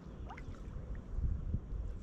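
Small lake waves lapping and splashing onto a pebble shore, with a bigger wash just past a second in.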